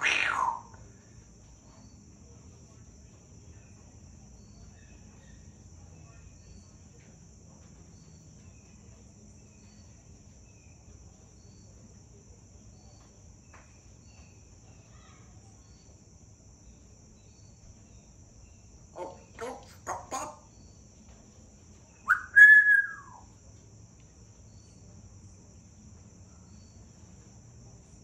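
Congo African grey parrot giving one loud whistle that rises, holds briefly and falls away, a few seconds after a couple of short, soft sounds; otherwise the room is mostly quiet.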